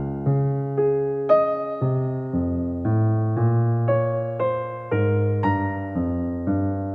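Background music: a gentle piano melody, notes struck about every half second over held bass notes.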